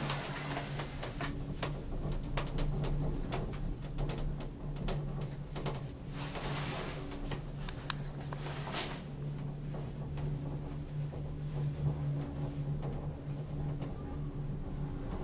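Cable car cabin travelling along its cable, heard from inside: a steady low hum with frequent small clicks and creaks, and brief hissing surges about six and nine seconds in.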